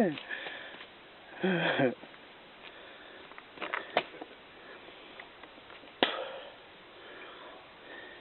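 A brief wordless call from a man's voice about a second and a half in, then a few faint clicks and one sharp knock about six seconds in, over a quiet steady background.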